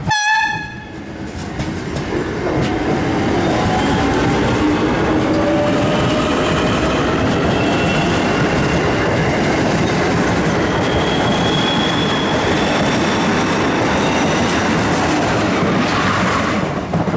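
DART 8600 Class electric multiple unit passing close by over a level crossing: a steady rumble of wheels on rail, with the whine of its electric traction motors rising slowly in pitch as it pulls away. A brief loud tone sounds right at the start, and the noise drops off suddenly near the end as the last carriage clears.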